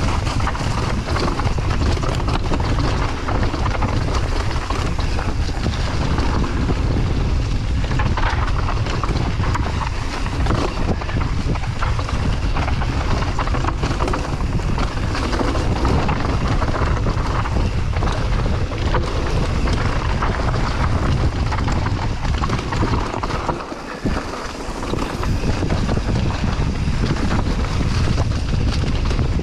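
Wind buffeting the microphone of a mountain bike descending a dirt trail, with steady rolling noise and constant small knocks and rattles as the bike runs over rough ground.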